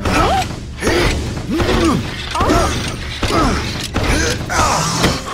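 Cartoon sound effects for an animated truck moving and hopping: a run of about six short mechanical creaks, roughly one a second, each gliding up and then down in pitch.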